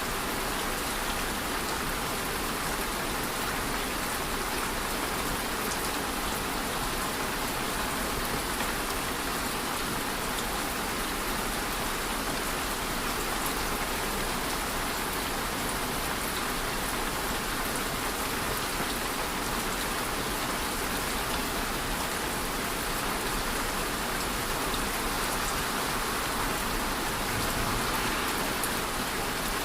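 Steady rain falling, an even hiss of countless drops with faint scattered ticks of individual drops on a surface.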